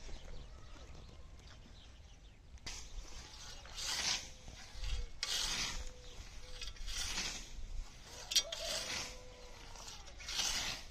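Old hand scythe swishing through tall green grass, stroke after stroke, about one every second and a half, starting a couple of seconds in; one sharp tick comes between strokes later on.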